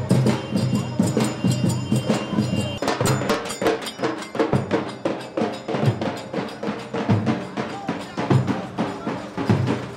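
Drums of a procession band played outdoors, beating a fast, steady rhythm of sharp strokes.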